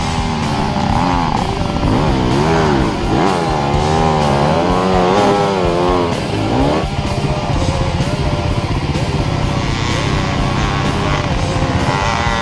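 Enduro dirt bike engine revving hard, its pitch rising and falling quickly again and again as the rider works the throttle on a steep dirt climb, settling to a steadier drone after about seven seconds. Background music runs underneath.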